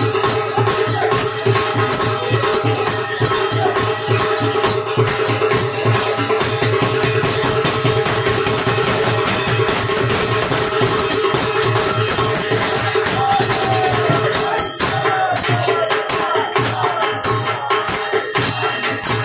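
Traditional Holi folk music (phagua) from a seated group, a fast steady beat played on a dholak barrel drum and a hand-held frame drum with jingling and brass hand cymbals. Men's voices sing over it.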